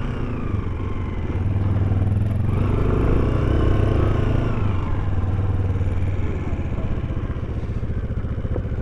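Off-road motorcycle engine running at low speed, with the revs rising and easing off about two to four seconds in.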